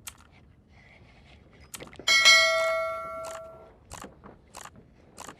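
A single bright metallic ring, like a small bell or piece of metal struck once, about two seconds in, fading out over about a second and a half; a few faint clicks and knocks before and after it.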